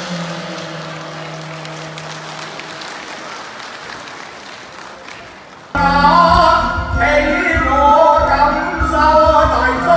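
Applause dying away over a fading held instrumental note, then, nearly six seconds in, loud Cantonese opera singing with instrumental accompaniment cuts in suddenly.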